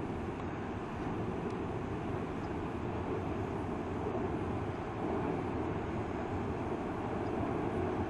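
Steady low rumble of a large waterfall heard from far off: the Río Santiago falling about 90 metres from the Santa Rosa dam spillway.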